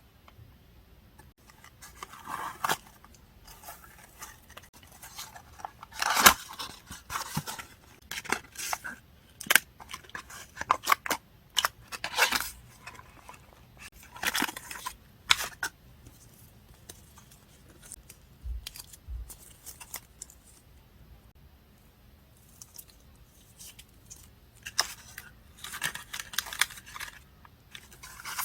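Journal-decorating paper work: irregular rustling, snipping and tearing of paper and stickers, with scattered small clicks as pieces are handled and laid down.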